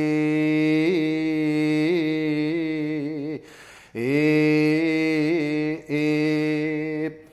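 A solo monk's voice chanting Buzan-school Shingon shōmyō (a hyōbyaku), drawing out long, steady notes on one pitch with small wavering ornaments (yuri). It breaks for breath about three and a half seconds in, comes back with a rising swoop, pauses briefly again, and stops near the end.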